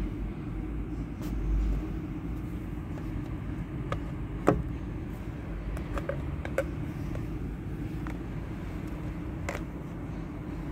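Steady low background rumble, with a handful of light clicks and knocks from the plastic magnetic window cleaner being handled against the glass. The sharpest knock comes about four and a half seconds in.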